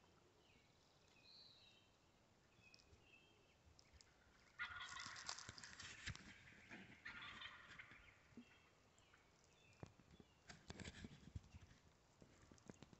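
Wild turkey gobbling about four and a half seconds in, a loud rattling call in two parts. Fainter calls come before it, and scattered knocks and rustles of handling come near the end.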